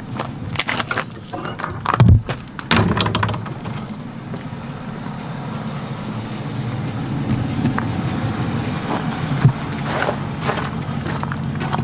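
A few knocks and a heavy thud about two seconds in, then a pickup truck's engine running with a steady low hum.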